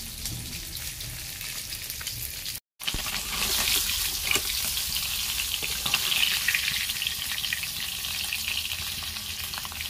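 Fish pieces frying in hot mustard oil in a kadai, a steady sizzle with the scrape and clink of a metal spatula turning them. After a brief break near the three-second mark the sizzle is louder.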